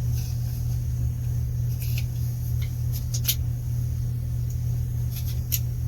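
A few light, sharp clicks as a pistol slide is worked onto a 3D-printed polymer lower frame, over a steady low hum.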